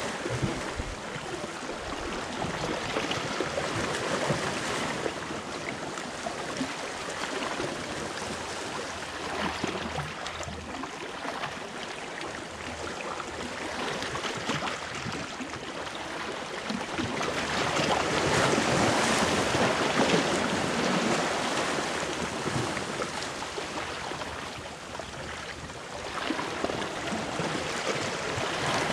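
Small sea waves washing and splashing against a rocky shoreline, a steady rushing wash that swells louder for a few seconds past the middle.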